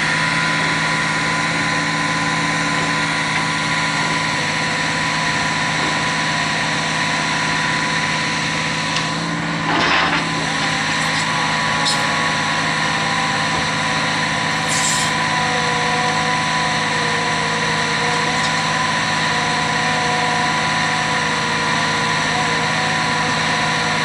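Rotary piling rig's engine and hydraulics running steadily with a constant whine while its kelly bar turns the auger down into the ground. A brief louder rush of noise comes about ten seconds in.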